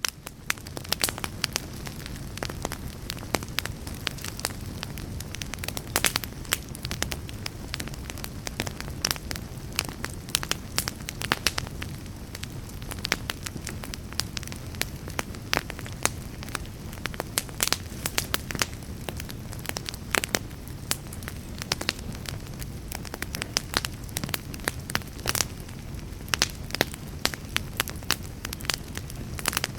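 Fire burning in a fireplace: a steady low rumble of flames with frequent irregular sharp crackles and pops.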